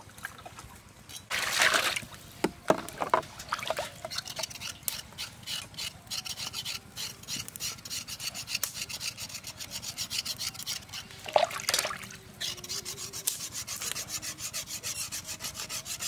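A knife blade scraping the hair and skin off a cow's leg in a steel basin of water, in quick repeated rasping strokes. Two short, louder swishes break in, about two seconds in and again near twelve seconds.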